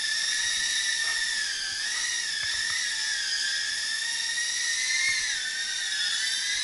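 Floureon FX10 micro quadcopter's motors and propellers whining steadily in flight, the pitch wavering up and down as the throttle is worked.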